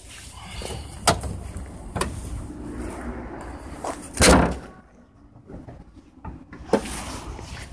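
A car door shut with a heavy thud about four seconds in, with a few sharp clicks and knocks before and after. Underneath, the low rumble of the Citroen Xsara Picasso's 2.0 HDi diesel engine idling, which drops away after the thud.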